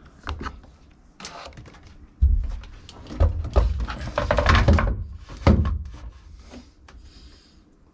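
Handling noise: thumps, knocks and rustling as a plastic-housed electric washdown pump is lifted and pressed against a fiberglass compartment wall to try its mounting spot. A couple of light knocks come first; the dense, heavy bumping starts about two seconds in and dies away near the end.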